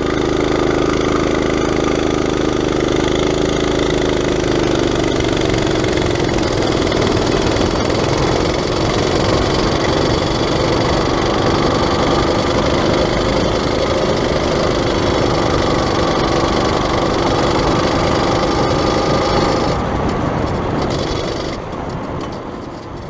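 Small single-cylinder Predator engine on a minibike running steadily at low speed, easing slightly in pitch about five seconds in, then fading out near the end.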